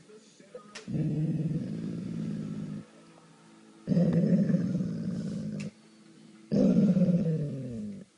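Dog growling: three long, low growls with short pauses between them, the last falling in pitch.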